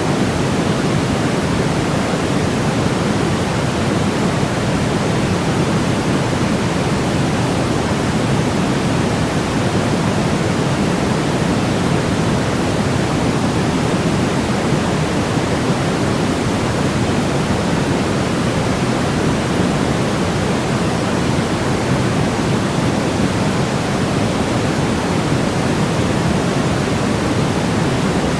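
Continuous white noise for baby sleep: a steady, even hiss with a deep, rushing tone, heavier in the low end than the high, with no change throughout.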